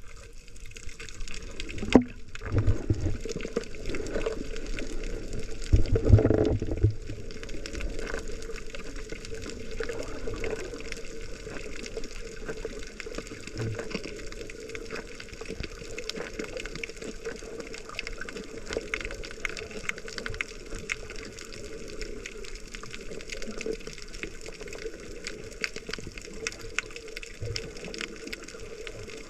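Water sloshing and bubbling around a GoPro camera while snorkeling, with louder surges about two and six seconds in. After that comes a steady fine crackle of many small clicks under a low hum.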